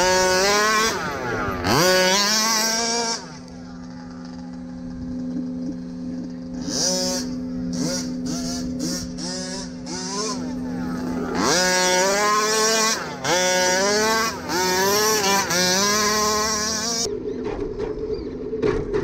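Radio-controlled car's motor heard from a camera mounted on the car, its whine rising in pitch with each burst of throttle and falling away again, over and over, with a hiss of tyres and ground noise. A quieter stretch comes a few seconds in, and the bursts come thick and fast again in the second half.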